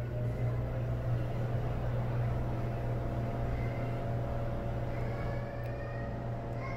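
Large Broan ceiling exhaust fan running: a steady low motor hum with a fainter, steady higher tone over it.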